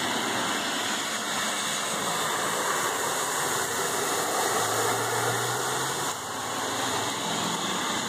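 Steady rush of heavy rain and flood water, with a faint low hum for a second or so about halfway through.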